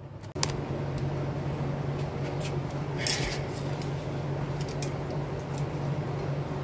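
Light metallic clinks and ticks of hand tools being handled, among them a pair of locking pliers, over a steady low hum that starts about half a second in.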